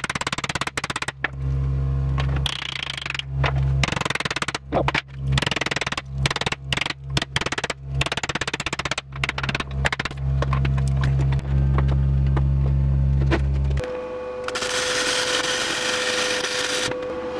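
A hammer strikes again and again on a steel block set on a microwave oven transformer clamped in a bench vise, knocking the core apart: many sharp metal-on-metal blows at irregular intervals over a steady low hum. Near the end it changes to about three seconds of steady loud hiss from a power tool cutting through metal and throwing sparks.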